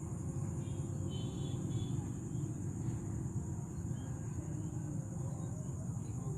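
Rice-field ambience: a steady low rumble under a constant high insect drone, with a few faint chirps about a second in.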